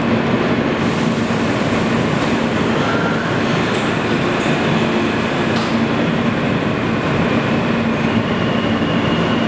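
New York City Subway R160 car running through a tunnel, heard from inside the car: a steady rumble of wheels on the rails, with a faint high whine coming in about six seconds in.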